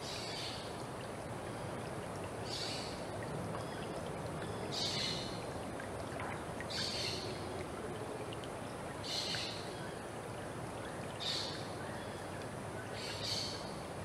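Shallow forest creek flowing with a steady rush of water. Over it, a short, high call repeats about every two seconds, seven times.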